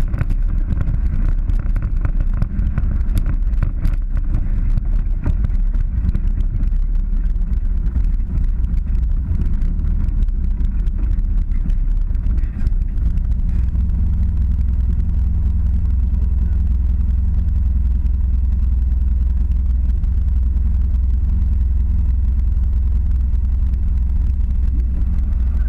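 Polaris 900 side-by-side engine running steadily while driving a rough dirt trail, a continuous low drone. Frequent clicks and knocks sound through the first half, and the drone settles into a smoother, even note from about halfway.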